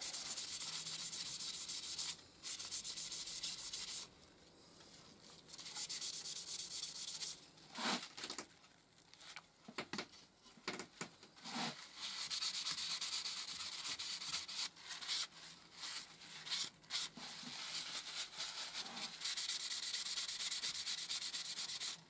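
Paper towel rubbing against a walnut pen blank on a lathe mandrel, cleaning it with methylated spirits and then applying sanding sealer. It is a dry, hissing rub that comes in spells, with pauses and a few short knocks.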